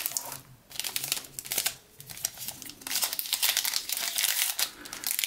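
Foil wrapper of a Panini Revolution basketball card pack crinkling as it is handled, in a dense run of irregular crackles that thickens in the second half.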